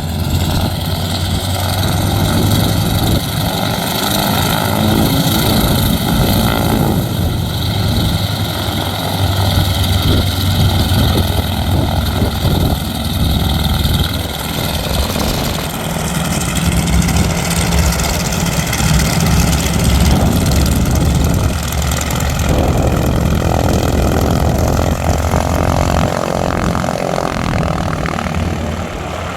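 An aircraft's engines running loudly and steadily on the ground. A low drone sits under several steady high tones, and the high tones shift about halfway through.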